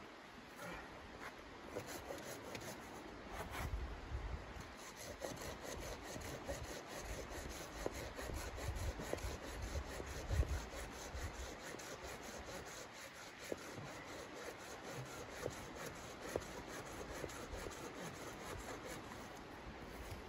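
Hand saw cutting wood: a steady run of rasping back-and-forth strokes, with a dull knock about halfway through.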